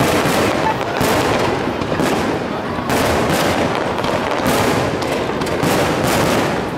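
Fireworks display: aerial shells bursting in a run of sharp bangs about once a second, over continuous crackling.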